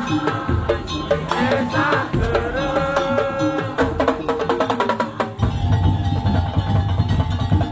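Live music with quick percussion strokes and a melodic instrument; a deep, heavy bass beat comes in about five and a half seconds in.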